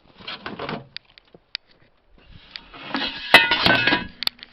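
Pieces of scrap metal clinking and clanking against each other as they are shifted around in a bin: a short rattle at first, then a longer, louder run of clatter with some ringing clinks about three seconds in.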